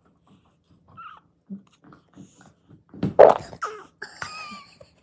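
A baby farting: one short, loud, sputtering burst about three seconds in, followed by a brief high-pitched whine.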